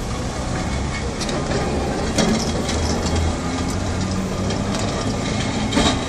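Vintage tram car No. 39 rolling past on street rails, its wheels and running gear rumbling and clattering, with two sharp knocks, one about two seconds in and one near the end.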